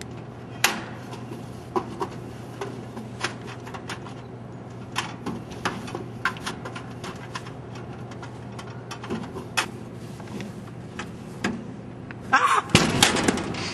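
Scattered clicks, taps and knocks of hands rummaging in a vending machine's delivery slot, over a steady low hum. A louder, busier burst of noise comes near the end.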